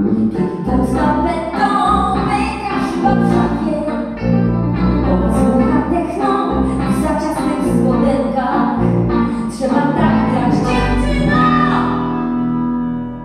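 A band playing live, with a woman singing over the instruments and regular sharp hits. Near the end the music drops away, leaving a held note.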